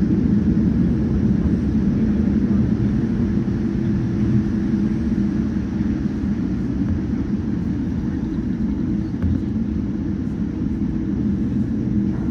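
Boeing 787 airliner's jet engines and airframe making a steady low rumble, with a faint hum of steady tones underneath.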